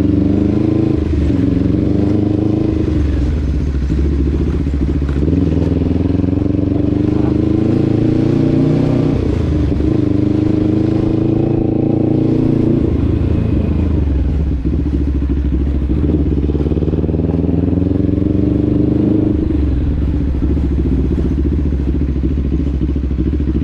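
Vehicle engine running under way, its pitch climbing in several long rises and dropping back each time, as when accelerating up through the gears.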